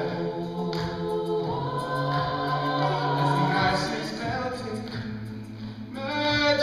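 A cappella vocal group of mixed male and female voices singing held chords behind a male lead singer, with no instruments. The voices swell louder near the end.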